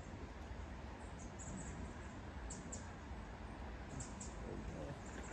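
Faint, steady outdoor background hiss and low rumble at a river bank, with a few short, very high chirps scattered through it.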